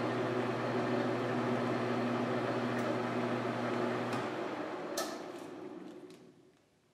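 Small metal lathe running with a steady hum during a thread-cutting pass on a steel part. About four seconds in the spindle is switched off and winds down to silence over about two seconds, with a sharp click a second after it is switched off.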